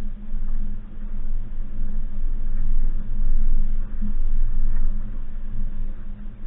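2019 Suzuki Jimny's 1.5-litre four-cylinder petrol engine running at low, steady revs while the vehicle drives, a continuous low hum that swells and eases slightly, with a few faint knocks.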